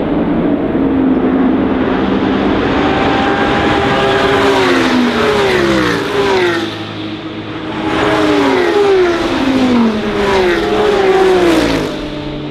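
A pack of race cars coming down the track and passing close one after another at racing speed, each engine note dropping in pitch as it goes by. There is a short lull about seven seconds in before more cars pass.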